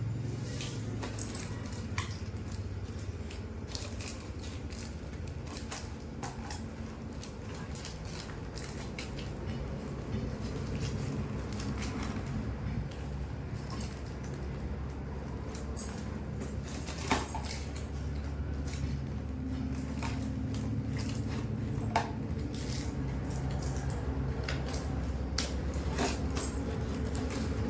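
Scattered light clicks and clinks of hard objects being handled, over a steady low hum.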